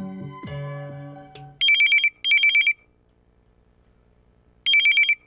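Background keyboard music fades out, then a corded landline telephone rings with an electronic trill: two short rings in quick succession, a pause of about two seconds, then another pair.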